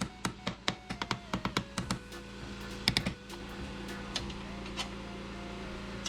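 A quick, irregular run of sharp clicks for about two seconds, a louder pair about three seconds in, then a few scattered clicks, over steady background music.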